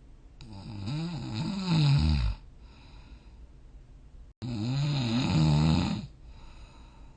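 A sleeping person snoring: two long, rough snores of about two seconds each, with a low pitch that wavers up and down. The first swells and is loudest near its end; the second starts abruptly about four and a half seconds in.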